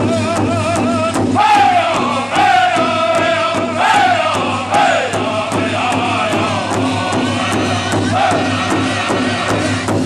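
Powwow drum group: several men striking one large shared drum in a steady, even beat while singing together in high, wavering voices. A held note with a wide vibrato opens, then from about a second in come repeated high phrases that slide downward.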